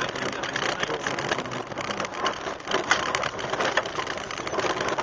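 Opel Astra GSi rally car heard from inside the cabin, driving at speed: engine and road noise, with many short sharp ticks and rattles.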